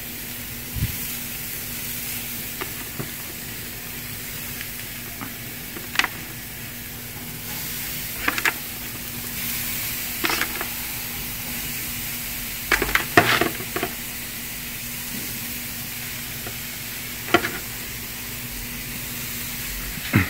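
Shish kabobs sizzling on a hot charcoal grill grate, a steady hiss that is the sign the grate is hot enough to sear. A few sharp clicks and clacks, the loudest in a cluster about two-thirds of the way in, as metal skewers are set down on the grate.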